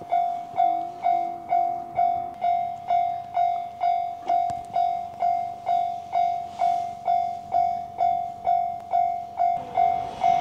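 Japanese level-crossing warning bell ringing: a single-pitched electronic ding repeated evenly about twice a second, signalling that a train is approaching. A train's rumble starts to build at the very end.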